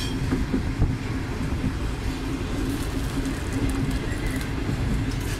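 Steady rumble of the Karachi Express passenger train running along the track, heard from aboard the coach, with a low steady hum running through it.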